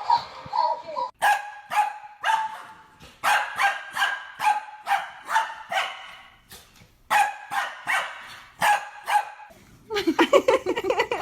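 A dog barking repeatedly, about two to three barks a second in runs separated by short pauses.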